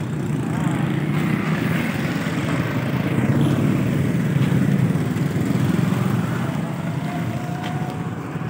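Street traffic: a steady rumble of motor vehicle engines, such as motorbikes and auto-rickshaws, with no clear speech.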